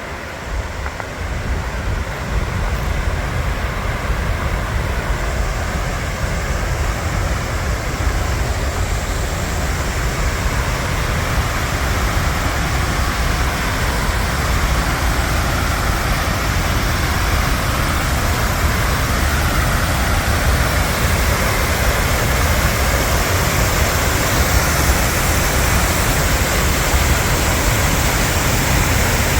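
Water pouring over a dam, a steady rushing noise that grows slowly louder.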